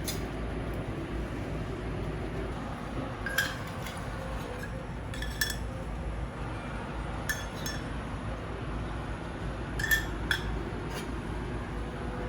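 Light clinks of cutlery against dishes or glassware, half a dozen short ringing taps a couple of seconds apart, over a steady low hum.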